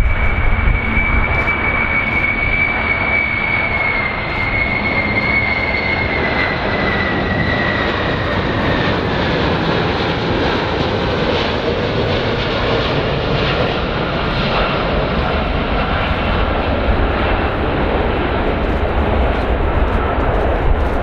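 Four turbofan engines of a Boeing 747-200 (VC-25A) on landing approach: a steady low jet rumble with a high engine whine that slowly falls in pitch as the jet comes past.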